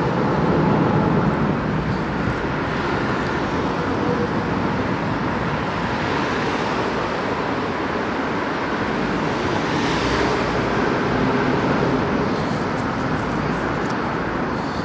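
Steady city street traffic noise: the rumble of cars and road noise, swelling slightly about ten seconds in.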